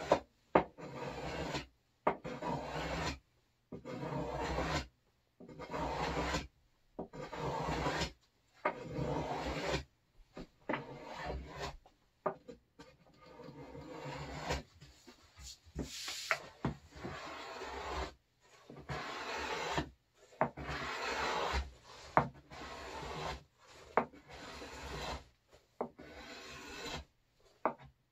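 Hand plane taking repeated shaving strokes along the edge of a board, trimming the edging flush with the thin cherry-veneer plywood. Each stroke is a scraping hiss of about a second, some starting with a sharp click, with short pauses between them.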